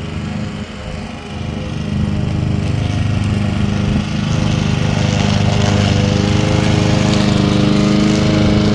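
Homemade remote-controlled lawn mower running steadily, growing louder about two seconds in.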